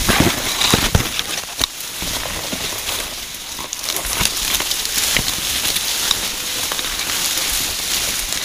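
Dry cane leaves and stalks rustling and crackling as someone pushes through the dense stand, with a few sharper snaps in the first two seconds.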